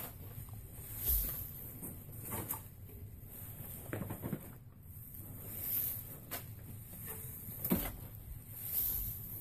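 Long braiding strands rustling and swishing as they are pulled, crossed and tightened by hand while braiding a rein handle, with a few short sharp knocks among them.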